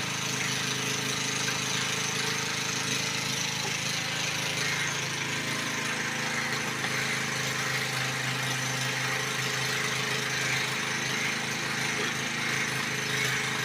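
A machine running steadily: a constant low hum with a hiss above it, unchanging throughout.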